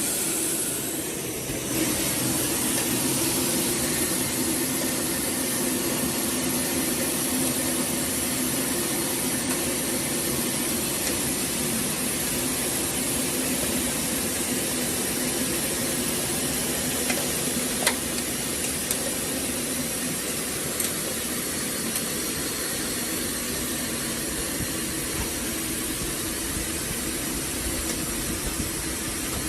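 Automatic bottle washer-filler-capper running: a steady machine hum with hiss, and a few sharp ticks along the way.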